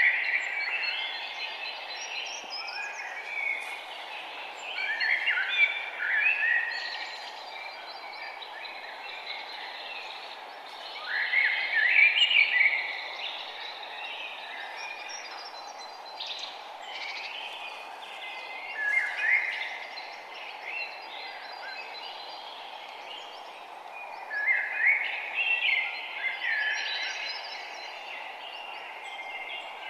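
Songbirds singing in a forest, a burst of chirping, warbling phrases every few seconds, over a steady background hiss.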